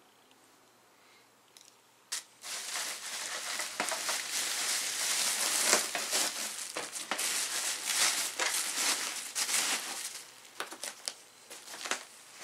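Bubble wrap and plastic packaging crinkling as it is pulled off a model truck. It starts about two seconds in and thins to a few scattered crackles near the end.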